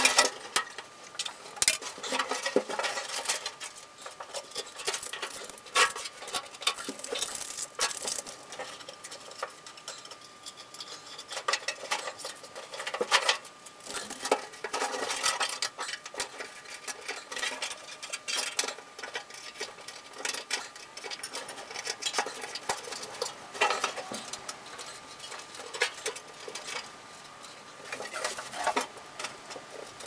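Irregular small clicks, scrapes and rustles of hands working a wiring harness, tape and pull line into a car's rear body.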